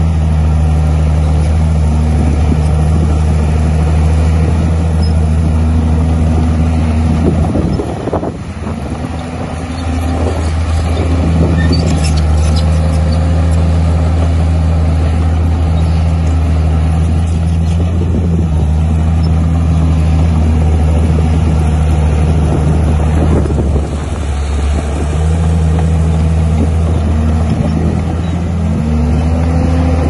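Komatsu D51 bulldozer's diesel engine running steadily under work. Its note sags briefly several times, most deeply about eight seconds in and again near the middle and end.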